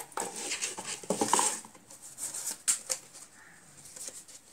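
Handling noise of a rubber-strapped digital watch and cardboard watch boxes being moved on a table: rustling and light knocks, with a few sharp clicks about two and a half to three seconds in.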